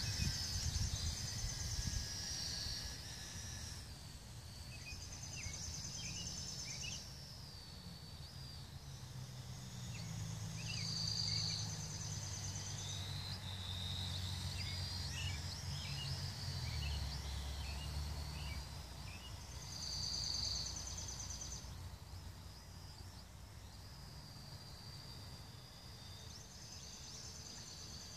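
Outdoor ambience of birds chirping, with a short high song phrase repeated every few seconds, over a low rumble of wind on the microphone.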